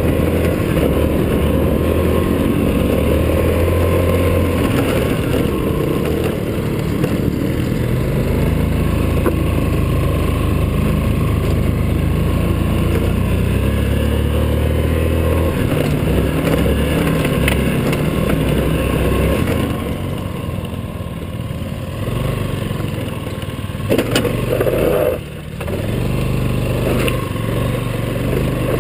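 Yamaha Riva scooter's engine running hard under throttle while riding off-road, its note rising and falling, with a dip for a couple of seconds about two-thirds through. A few sharp knocks near the end.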